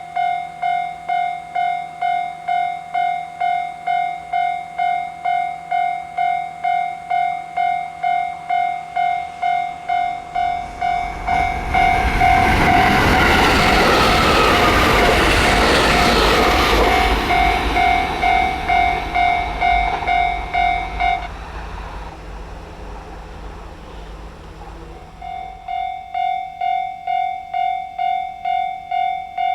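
Japanese level crossing warning bell dinging about twice a second. About ten seconds in a train runs through the crossing with a loud rush of wheels on rail for about ten seconds. The bell stops soon after the train passes, then starts ringing again near the end.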